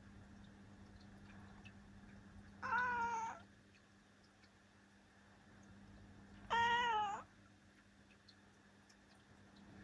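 Domestic cat meowing twice, two short separate meows a few seconds apart.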